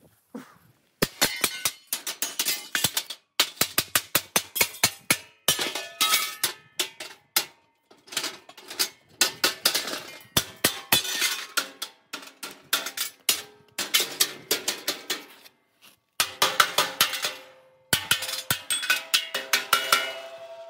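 Hammer striking a steel fire pit sphere to knock out its cut-out pieces: fast runs of clanging metal blows, several a second, broken by short pauses. Near the end the steel rings on after the last blow.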